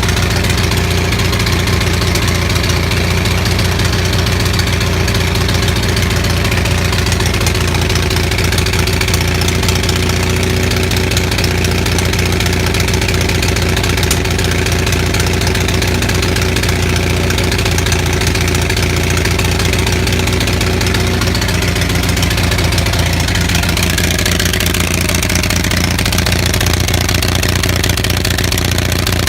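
Onan 6500 commercial gas generator's engine running rough without a muffler, misfiring and popping. The misfire comes from severely fouled spark plugs.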